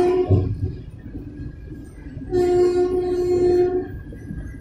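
Train horn sounding in two steady single-pitch blasts: one ending just after the start, and a second of about a second and a half beginning about two seconds in, over low rumble.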